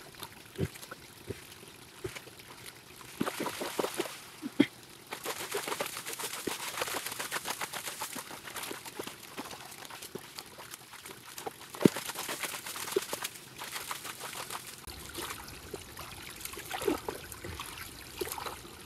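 Hands scooping and sloshing in the shallow, muddy water of a spring's small collecting pool as the silt is dug out, with water trickling. A few sharp knocks, about one every few seconds, rise out of it.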